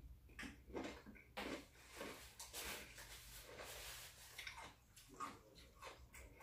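Close-miked chewing and mouth sounds of someone eating, irregular and wet, several a second.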